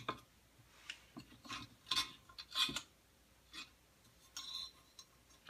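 Light metallic clinks and taps of small chainsaw muffler parts and a wrench being handled and set down, about eight scattered over a few seconds.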